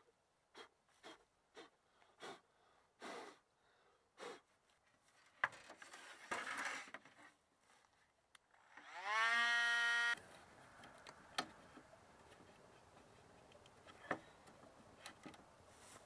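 A small handheld power tool's electric motor spins up with a rising whine, runs steady for about a second and cuts off suddenly. Before it come several brief scrapes on the wooden board.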